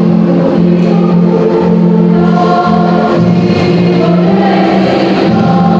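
High-school choir singing in parts, holding sustained chords that move from note to note.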